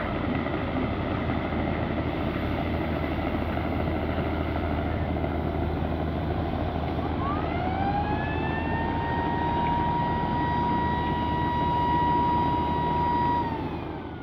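Steady low rumble and wash of a river passenger launch under way, with one long horn blast starting about halfway through: its pitch slides up as it sounds, holds steady for about six seconds, then drops as it stops. Everything fades out at the very end.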